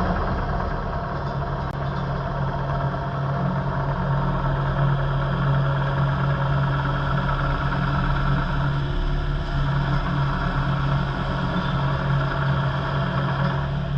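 Diesel engine of a Kubota KX080-4alpha midi excavator running steadily with an even hum.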